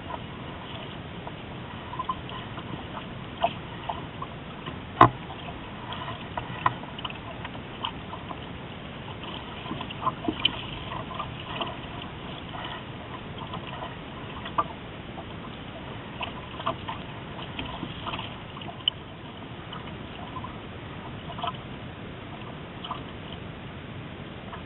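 Water sloshing and trickling along the hull of a small sailboat under way, with scattered light clicks and knocks, the sharpest about five seconds in.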